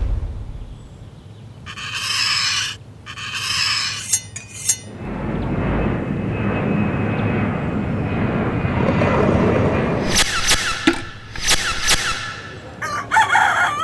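A string of exaggerated comic sound effects: two short hissing bursts, a few sharp clicks, a long rushing noise, then a rooster crowing, used as a morning wake-up effect, in the last few seconds.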